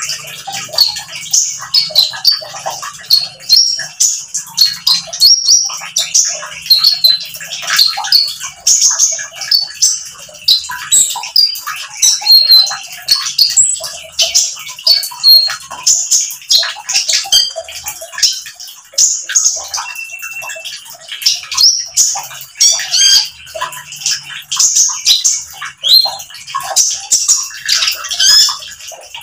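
Male Van Hasselt's sunbird (kolibri ninja, 'konin') singing in full 'nembak' volley: a continuous run of rapid, shrill, high twittering chirps.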